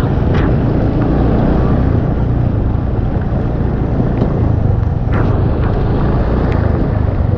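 An engine running steadily under way, with wind noise on the microphone.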